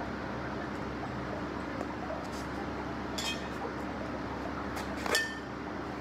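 Glass bottle being handled and clinking against hard objects: a few light clinks, then one sharper clink about five seconds in that rings briefly. A steady hiss and low hum run underneath.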